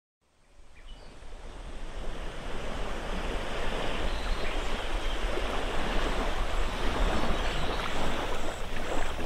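Sea washing against the shore, with wind rumbling on the microphone, fading up from silence over the first few seconds and then steady.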